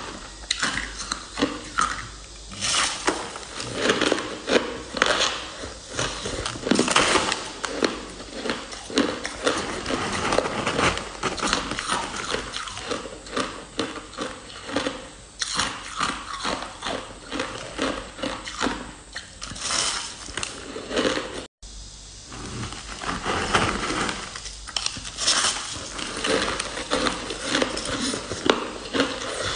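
Shaved ice being bitten and chewed close to the microphone: dense, irregular crunching. It cuts out for an instant about two-thirds of the way through.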